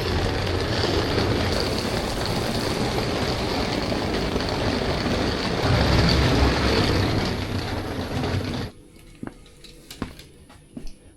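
Steady road-traffic noise that cuts off suddenly near the end, leaving a quiet background with a few faint clicks.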